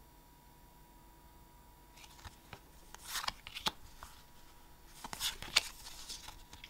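Pokémon trading cards being slid and flipped in the hand, in two spells of crisp card rustling and flicks: one starting about two seconds in, the other about five seconds in.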